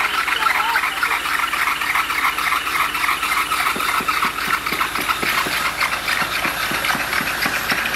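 Machinery running at a concrete pour: a steady, busy mechanical noise, joined about four seconds in by a rapid rattling clatter.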